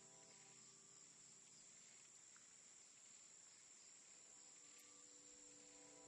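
Faint forest ambience of crickets: a steady, high chirring. Soft sustained music tones fade out just after the start and come back near the end.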